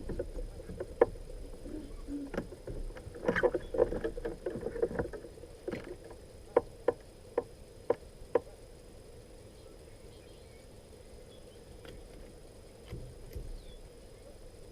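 Irregular sharp taps and knocks, about a dozen over the first eight seconds, then a faint steady background.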